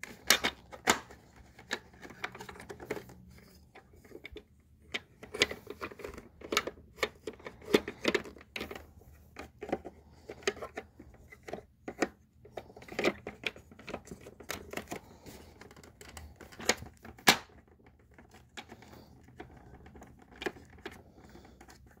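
Irregular clicks and knocks of a Dirt Devil Dynamite Plus vacuum's parts being handled and pushed together during reassembly, a part that won't seat.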